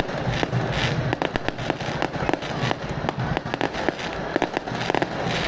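Firecrackers and fireworks going off in a dense, irregular run of sharp bangs and cracks, several to the second.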